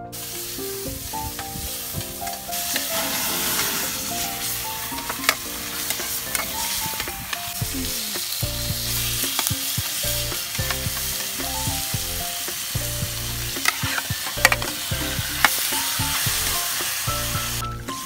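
Salmon head pieces, tomatoes and onions sizzling as they fry in oil in a hot pan, with scattered sharp pops. The sizzle grows louder a couple of seconds in and stops just before the end. Soft background music plays underneath.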